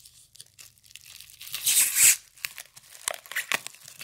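Bubble wrap being slit with a knife and torn open by hand: a loud rip about one and a half seconds in, then scattered crackles and crinkles of the plastic.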